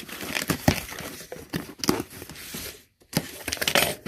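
Toy packaging being handled and opened: irregular crinkling and rustling with light clicks and knocks, pausing briefly about three seconds in.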